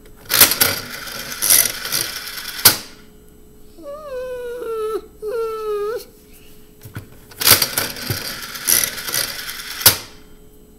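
Mini Jumbo Slot toy slot machine spinning twice, each spin a noisy whir with clicks that ends in a sharp click. Between the spins, a voice gives two high, puppy-like whimpers.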